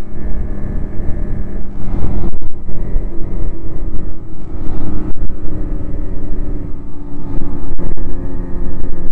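Snowmobile engine running at riding speed, heard from on board; its note shifts in pitch a few times, over a heavy low wind rumble on the microphone.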